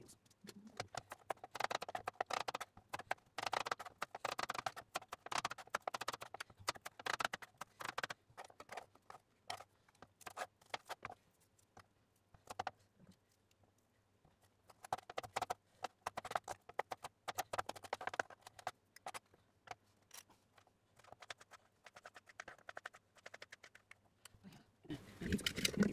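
Kitchen knife chopping on a plastic cutting board: rapid runs of sharp knocks with a pause of a couple of seconds in the middle.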